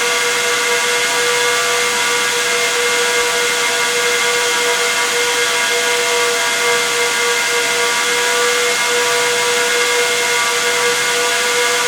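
Dell EMC PowerEdge XR12 server's six high-speed cooling fans running, a loud steady rush of air with several whistling tones layered over it, the lowest and strongest tone wavering slightly as the fans drift in and out of step.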